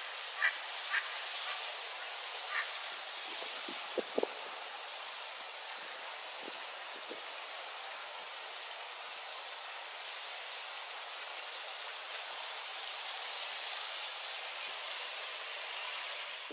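Freezing rain falling: a steady, even hiss with a few faint ticks scattered through it.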